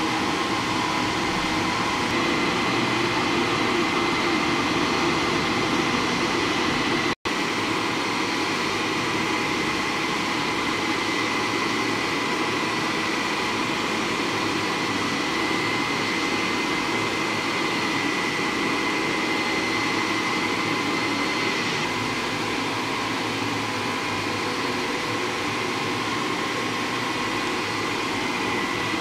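Micro hydro turbine (a vertical propeller turbine in a scroll casing, belt-driven to its generator) running steadily: a constant rushing hum with a thin high whine over it. The sound cuts out for an instant about seven seconds in.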